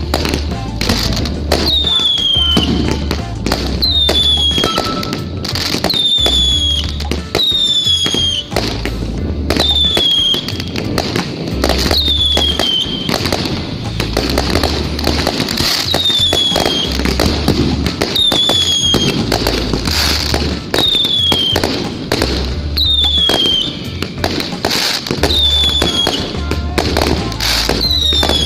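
Fireworks popping and crackling over music with a heavy, even bass beat and a short falling whistle that repeats about every two seconds.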